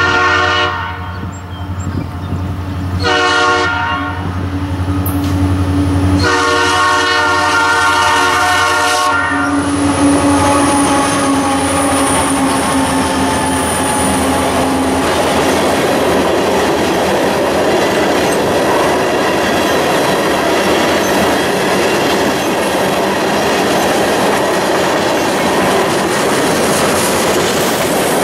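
Freight locomotive horn blowing for a grade crossing: a blast ending just after the start, another about three seconds in, and a longer one from about six to nine seconds. The train then passes and a long string of tank cars and hoppers rolls by with a steady clatter of wheels on rail, with a faint wheel squeal briefly after the horn stops.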